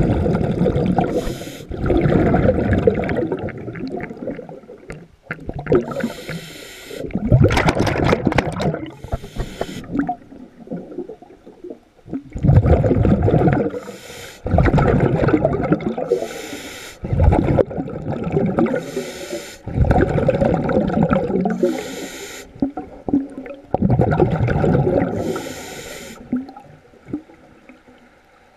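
A diver breathing underwater. Exhaled bubbles come in rumbling, bubbly bursts every two to three seconds, with short hissing breaths between them.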